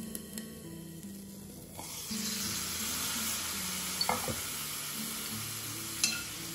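Chopped mushroom, carrot and beans sizzling in ghee in a small cast-iron pan; the sizzle is muffled at first and grows louder about two seconds in as the glass lid comes off, with a couple of light knocks of lid or spoon against the pan.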